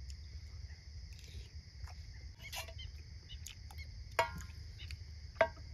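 Crickets chirring steadily in the background, with scattered light clicks and two louder ringing metallic clinks about four and five and a half seconds in, from a spoon knocking on a metal dish during a meal.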